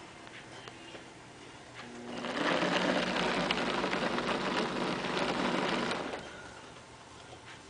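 The small electric motor and blower of a vintage plastic Smirnoff blizzard display sign whirring with a rattling hiss, swelling up about two seconds in and dying back down about six seconds in.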